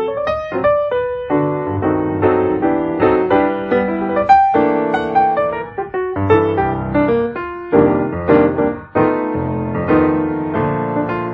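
Background piano music: a flowing run of many quickly played notes with no pause.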